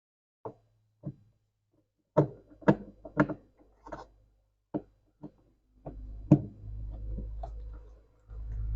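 About a dozen sharp knocks and clicks of plastic refrigerator parts and a screwdriver being handled and fitted during reassembly. A low steady rumble comes in about six seconds in, under the knocks.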